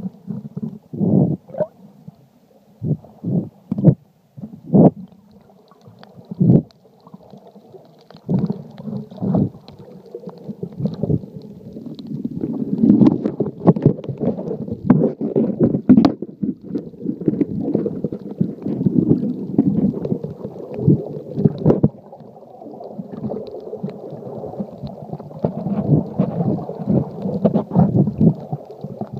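Muffled water sloshing and gurgling against an iPhone in a LifeProof waterproof case, heard underwater. It comes in separate short bursts for the first several seconds, then turns into a denser, steadier wash of water noise.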